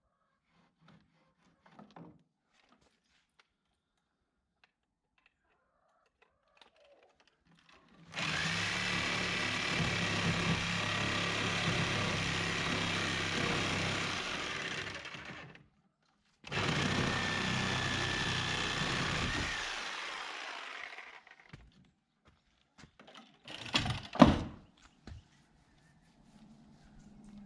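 A handheld power tool runs twice with a steady whine, first for about seven seconds and then for about four, winding down at the end of each run. A few sharp knocks follow near the end, the loudest a single hard thunk.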